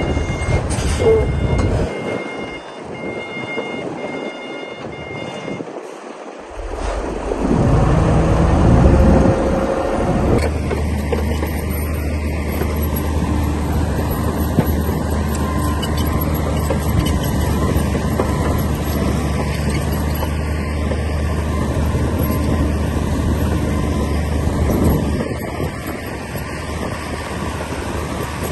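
A reversing alarm beeps over the first few seconds. About seven seconds in, a heavy diesel construction machine's engine revs up and then runs steadily under load, easing off slightly near the end.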